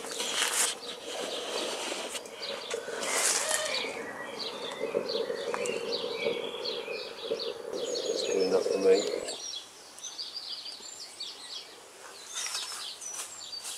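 Fire burning in an M-Kettle chimney kettle, drawing up the chimney with a steady low hum that stops abruptly about nine seconds in. Birds chirp throughout the second half, with a couple of brief rustles near the start and about three seconds in.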